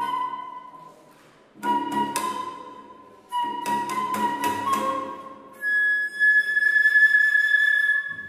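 Flute and cello playing contemporary chamber music. A held flute note fades out, then two sudden accented attacks, each ringing and dying away, and about two-thirds of the way in the flute holds a long, loud high note.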